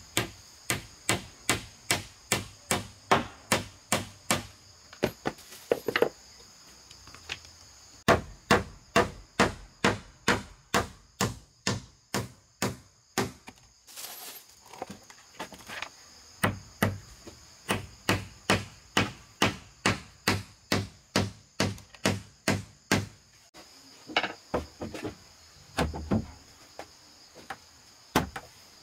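Rapid, even blows of a hand tool striking wood, about two to three a second, in runs with a few short pauses. Insects trill steadily behind.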